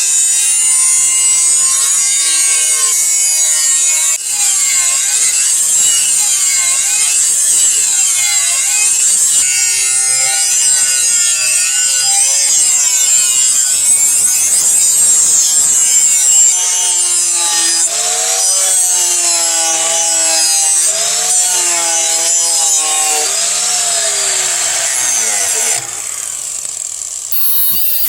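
A steel knife blade being shaped by scraping or grinding: a steady, loud, high hiss with a pitch that rises and falls about once a second as the strokes go back and forth. It eases off near the end.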